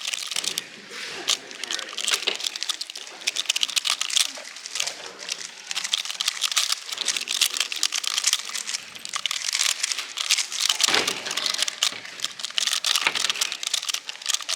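Speed cube being turned rapidly: a dense, continuous run of plastic clicks and clacks from the layers snapping past each other.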